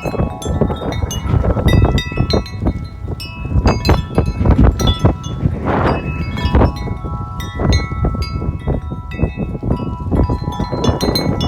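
A 36-inch Corinthian Bells tubular wind chime ringing busily in strong wind, many overlapping tones struck again and again, with heavy wind buffeting on the microphone.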